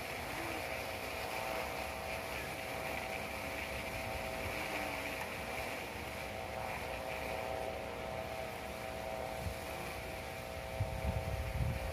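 Kite hummer (sendaren), the bow strung above a traditional Javanese gapangan kite, droning in the wind: a steady buzzing hum of several stacked tones. Wind rumbles on the microphone throughout, gusting near the end.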